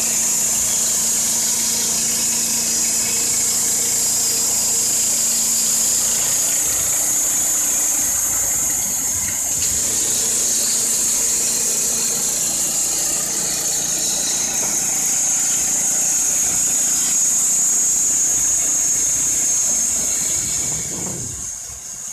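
Wood-Mizer LT15 band sawmill running under its 15 hp Kohler Pro-15 petrol engine, the band blade sawing through pine with a steady high-pitched whine over the engine. Near the end the engine's pitch falls and the sound drops off as the cut finishes.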